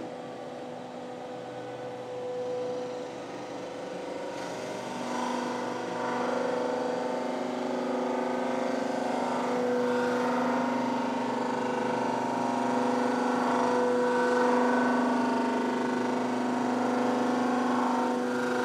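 Deck-surfacing machine cutting the deck face of an LS2 V8 cylinder block: the rotating cutter head gives a steady pitched whine over a hiss, getting louder about five seconds in as the cut goes across the deck.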